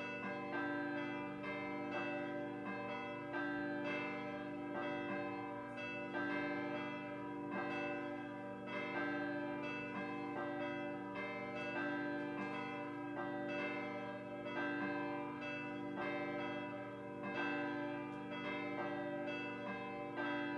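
Schulmerich Basilican III DSP digital carillon playing its Sunday mass call: sampled swinging church bells, three bells pealing, their strokes overlapping a few times a second in an uneven rhythm and ringing on between strokes.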